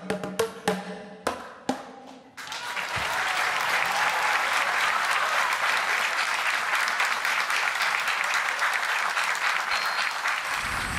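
Boomwhackers, the pitched plastic percussion tubes, struck in a quick run of closing notes that stop about two seconds in. An audience then breaks into steady applause. Near the end a few short chiming notes of a jingle start.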